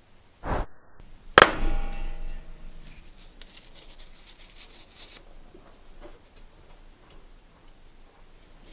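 A hard knock with a short ringing tail, then the crinkle of a paper template being smoothed onto a block of oak, stopping a little past five seconds in; another knock right at the end.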